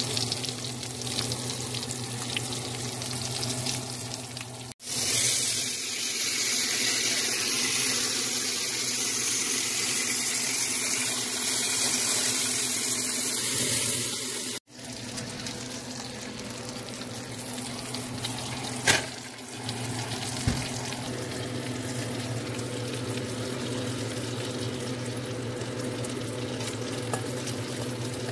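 Salmon fillet frying in oil in a nonstick pan: a steady sizzle that is louder and brighter through the middle stretch, over a steady low hum. A single sharp click a little before two-thirds of the way through.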